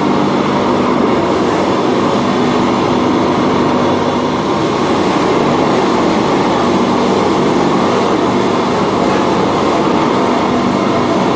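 Stainless-steel cassava flour mill running steadily as it grinds, a loud continuous machine noise with a constant low hum.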